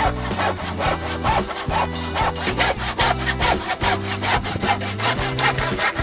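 Hand saw crosscutting a 25 mm softwood board, in quick, even strokes about four a second.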